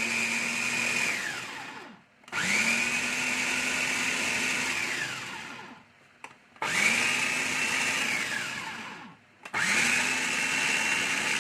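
Small electric food chopper switched on and off repeatedly to chop boiled molokhia (jute mallow) leaves: each run of about three seconds has the motor whine rise to speed, hold steady, then wind down, with short pauses between runs.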